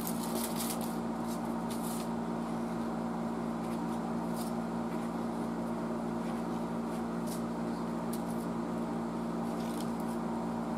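A steady low hum throughout, with occasional faint scrapes and crinkles from hands working a wax-filled paper capacitor and its cardboard sleeve with a pocket knife over aluminium foil.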